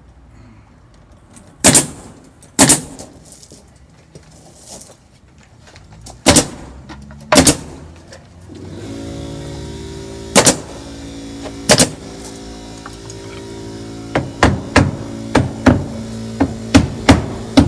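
A pneumatic coil nailer fires six single shots, nailing wood trim under a window. A steady mechanical hum starts about nine seconds in and keeps running. Near the end comes a quick run of about nine hammer blows on the trim.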